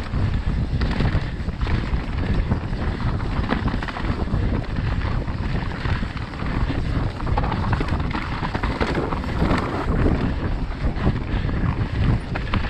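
Mountain bike ridden fast down a dirt forest singletrack: wind buffeting the camera microphone over tyres rolling on dirt and leaves, with frequent knocks and rattles from the bike over the rough trail.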